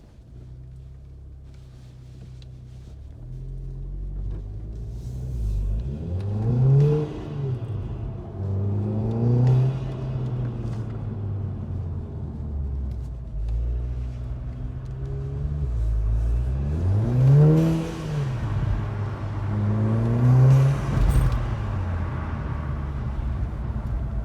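Mk7 Golf R's 2.0-litre turbocharged four-cylinder, fitted with a RamAir induction kit and turbo muffler delete, running steadily and then revving up and back down about four times.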